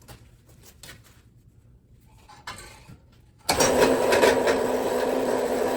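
After a few faint handling clicks, an electric drill starts about three and a half seconds in. It runs steadily, turning a homemade wire winder that reels in 2/0 copper cable.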